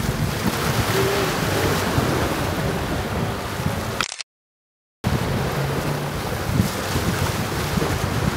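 Wind buffeting the microphone over the wash of sea waves, a dense rumbling noise. The sound drops out to total silence for just under a second about four seconds in.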